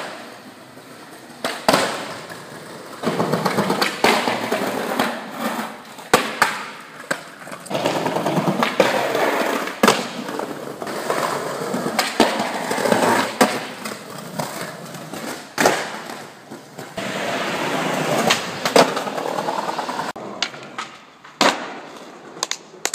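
Skateboard rolling over square paving tiles, its wheels clicking over the joints in quick even runs, broken again and again by sharp cracks of the board being popped and landing.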